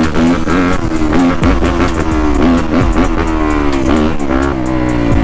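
Yamaha YZ250F dirt bike's four-stroke single-cylinder engine revving on the move, its pitch climbing and dropping repeatedly as the throttle is worked, with a music track with a steady beat underneath.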